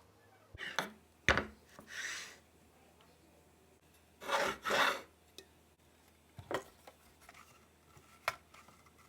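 Several brief rubbing scrapes, the two strongest back to back about four and a half seconds in, with a few sharp clicks between them.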